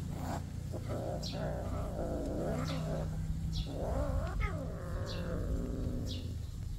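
Cat yowling during a play-fight: two long, drawn-out wavering calls, the second rising and falling in pitch near the middle.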